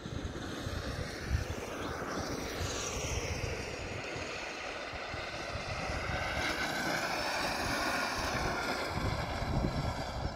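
MightE electric motor of a Bambino kart whining as the kart laps, rising and falling in pitch as it speeds up and slows, and loudest as it passes nearest.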